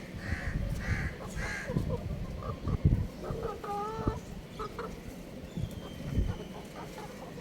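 Young rooster clucking and chirping: three short high chirps in the first two seconds, then a longer wavering call about three and a half seconds in. Low thumps and bumps come and go underneath, the loudest about three and six seconds in.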